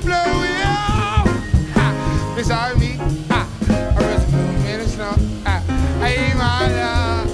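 Small jazz band playing a swing ballad without vocals: a saxophone carries the lead melody over piano, bass and drums with cymbals.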